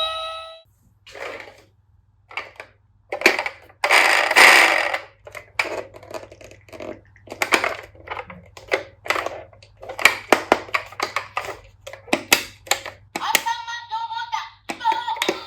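Toy fire trucks clattering down a wooden slope: a run of irregular sharp clicks and knocks. A toy siren's rising tone cuts off about half a second in, and a short wavering electronic tone sounds near the end.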